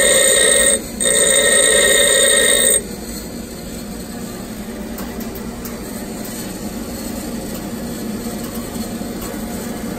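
Steel drill bit ground against a spinning bench-grinder wheel, giving a loud ringing grind in two passes with a short break under a second in. This is the primary clearance facets of a four-facet drill point being ground. The grinding stops about three seconds in, and the grinder runs on with a steady hum.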